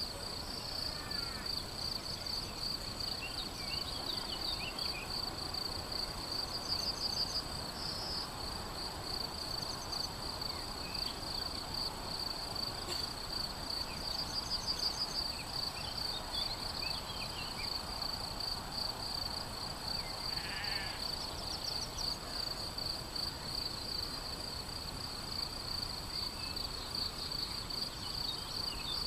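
Crickets chirping in a continuous, shrill, fast-pulsing trill, with brief bird chirps here and there.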